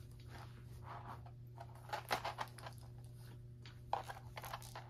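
Soft rustling and handling noise as a gold-tone chain crossbody strap is held and adjusted against a shirt, with a light click about four seconds in, over a low steady hum.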